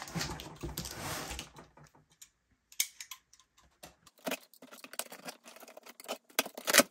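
A cardboard carton being handled, then a utility knife cutting through the packing tape along the top of the box: a run of small clicks and scratches, with a louder snap near the end.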